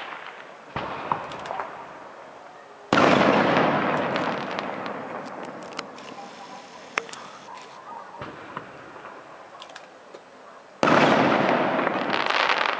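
Aerial firework shells bursting: a smaller bang just under a second in, then two loud bangs about three seconds in and near the end, each dying away over a few seconds, with scattered small pops and crackles between them.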